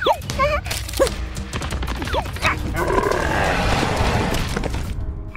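Cartoon sound effects: several short, squeaky, yelping cries that swoop in pitch, then a longer rasping growl about three seconds in, over background music.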